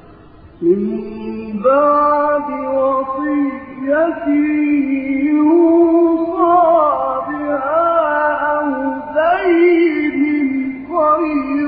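A man's voice reciting the Quran in the melodic, drawn-out style, holding long notes that bend and waver in pitch. It comes in about a second in, with short pauses between phrases.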